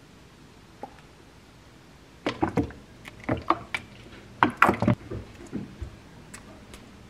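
Cookware knocking and clattering on a cooktop, a quick run of knocks starting about two seconds in and dying away before the end, loudest just past the middle.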